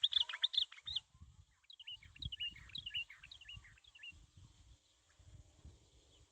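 A songbird chirping: a quick run of sharp chirps, then a string of short notes that each drop in pitch, fading out after about four seconds. Low rumbling knocks sound underneath throughout.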